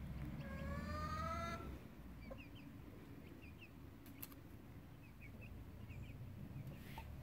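A chicken gives one long, slightly rising call about half a second in, followed by faint short high peeps of the chicks scattered through the rest, with a single click a little past the middle.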